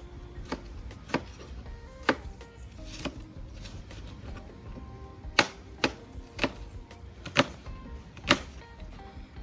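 A kitchen knife chopping vegetables on a cutting board: about nine sharp, separate strikes at an uneven pace, the loudest in the second half, over background music.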